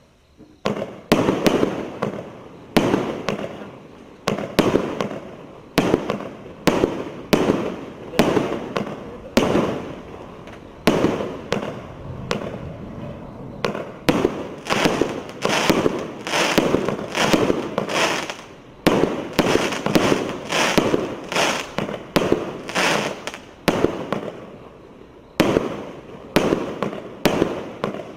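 A 120-shot consumer firework battery (cake) firing in sequence: sharp shots a little more than one a second, each followed by a crackling tail as the shell bursts. The shots pause briefly near the end, then carry on.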